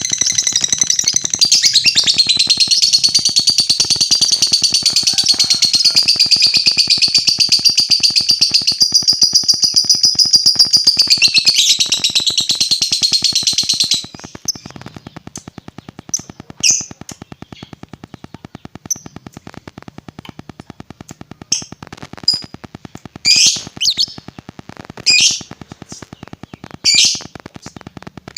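A lovebird giving a long, unbroken, high chattering trill (ngekek panjang) that stops abruptly about halfway through. It then gives short, sharp chirps every second or two over a faint, fast, steady ticking.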